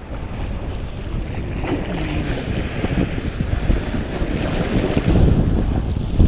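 Wind buffeting the microphone, a steady loud rumble with irregular thumps, over sea water washing among shore rocks.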